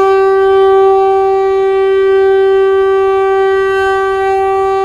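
Locomotive horn sounding one long, steady blast on a single pitch.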